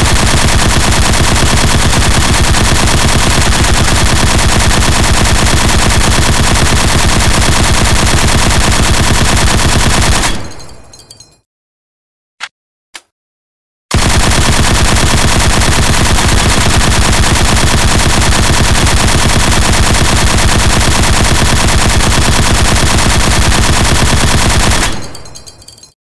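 M60 machine gun firing full auto in two long continuous bursts of about ten seconds each, each trailing off at the end. Between the bursts, about 12 to 14 seconds in, there is a short pause with two brief clicks.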